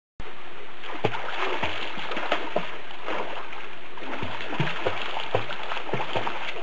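Water splashing as a child swims, arms and legs beating the surface in quick irregular splashes over a steady rush of water, starting abruptly a moment in.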